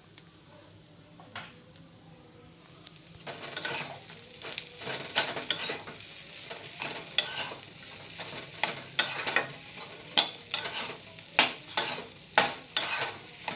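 Spatula stirring and mashing spiced boiled-potato samosa filling in a pan on the gas, with repeated sharp scrapes and knocks against the pan over a light sizzle. It starts about three seconds in after a quiet stretch with a single knock.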